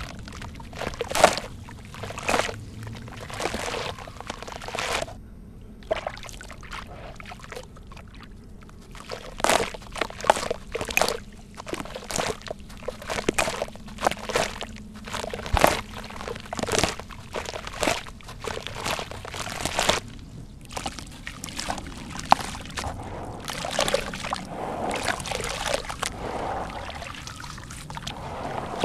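Wet sand-cement chunks crumbled by hand into a basin of water: irregular gritty crunches and splashes as pieces and grit drop and pour in. Near the end the strokes run together into a more continuous sloshing of the hands in the muddy water.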